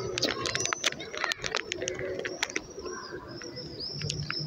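Plastic gummy-candy bag crinkling as fingers rummage in it, a quick run of crackles through the first couple of seconds. Birds chirp near the end.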